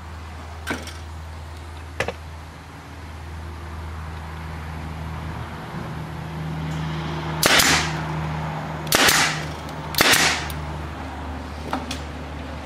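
Pneumatic stapler firing three staples about a second apart into a plywood strip, each a sharp crack with a short tail, over a steady low hum. A couple of light clicks come in the first two seconds.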